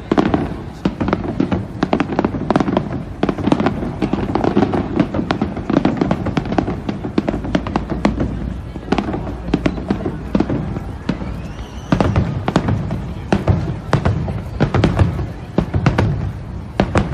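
Aerial firework shells bursting over the water in quick, irregular succession: many sharp cracks and bangs over a low rumble. The rumble grows heavier about twelve seconds in, as several large shells go off together.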